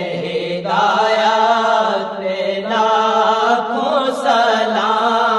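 Urdu naat sung by a man without instruments, with long drawn-out, wavering notes over a steady low vocal drone.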